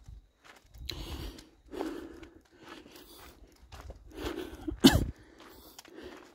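A hiker's footsteps on a rocky dirt trail, roughly one a second, mixed with breathing. About five seconds in there is a sudden loud burst that falls steeply in pitch.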